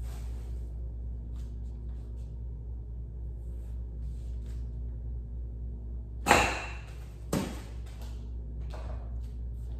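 Two sharp knocks about a second apart, the first louder, as a homemade serving-spoon catapult is struck on a countertop to fling a cotton-weighted plastic bag. A steady low hum runs underneath.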